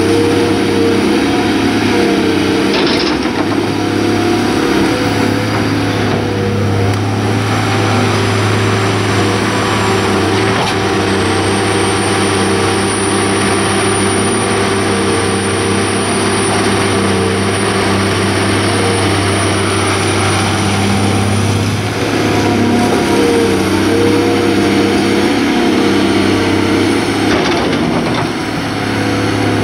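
CAT 345B L II hydraulic excavator's diesel engine running steadily under load while it works through a swing, dig and dump cycle. A thin high whine sounds through the middle of the cycle.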